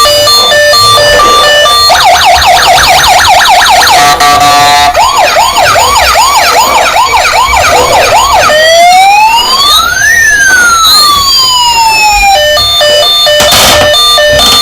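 Electronic siren of a toy emergency vehicle's sound module cycling through patterns. It goes from a two-note hi-lo to a fast yelp, then a slower warbling sweep, then one slow rise and fall, and back to the hi-lo. There is a short burst of noise near the end.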